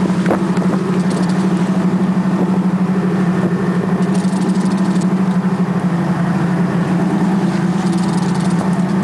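Boat engine running steadily at a low, even pitch.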